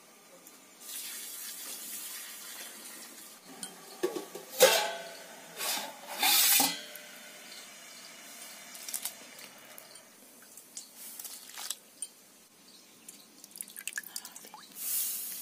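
Steel cooking pots and bowls clanking and ringing, the loudest clank about a third of the way in, with short bursts of water pouring and splashing into a steel bowl.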